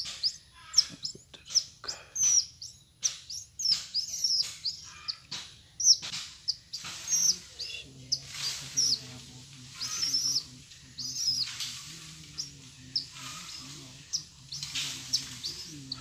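Bird chirps: many quick, high, downward-gliding calls in rapid succession, thickest in the first half. From about eight seconds a low, wavering hum runs underneath them.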